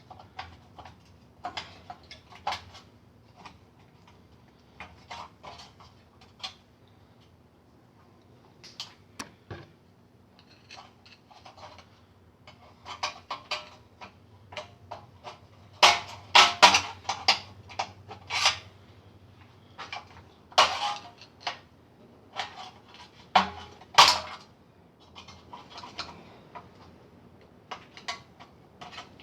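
Loose metal engine parts and hand tools clinking and clanking in scattered knocks during work on a bare V8 engine's top end, where the valley pan is being pulled out from under the removed intake. The clatter is busiest in the second half.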